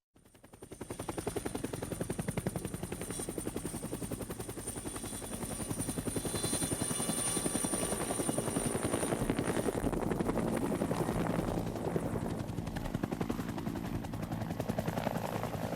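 Helicopter with its rotor blades chopping in a fast, steady beat and a thin high whine over it. The sound fades in over the first second.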